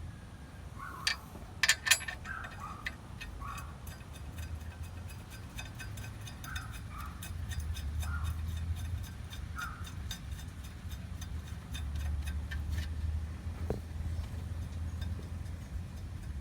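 Metal tools ticking and clinking during work on the car, with three sharp metallic clicks about a second or two in and a steady low hum underneath.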